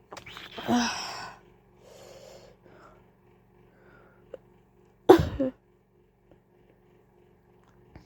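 A person coughing: a drawn-out, rasping cough about half a second in, followed by a faint breath, then one sharp, louder cough about five seconds in.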